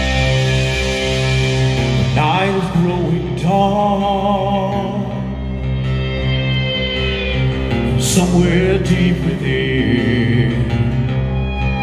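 Live rock band with drums, guitars and keyboards playing loudly while a male lead singer holds long notes with a wide vibrato.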